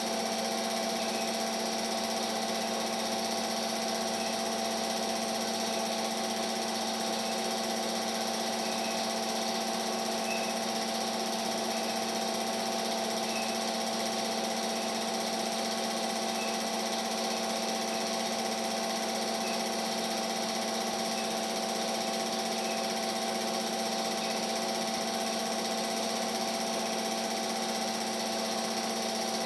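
Steady mechanical hum of a small motor running at a constant speed, with several fixed tones over an even hiss and no change throughout.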